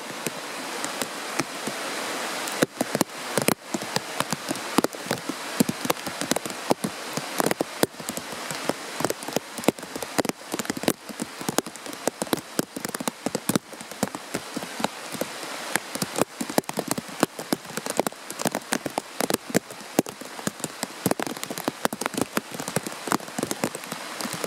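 Rain falling on forest foliage: a dense, irregular pattering of drops over a steady hiss.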